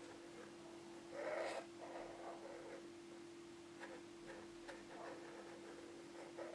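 Felt-tip marker drawing on a cardboard drawer front: faint, scratchy strokes, the loudest about a second in, then a few small ticks, over a steady low hum.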